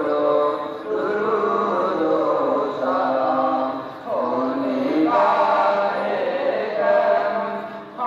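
Men's voices chanting a devotional salaam in long sung phrases, with a short break about four seconds in and another near the end.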